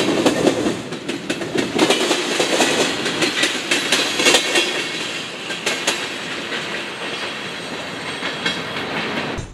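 Freight train tank cars and a covered hopper rolling past, their steel wheels clacking over the rail joints in quick, uneven clicks. The sound fades as the end of the train goes by.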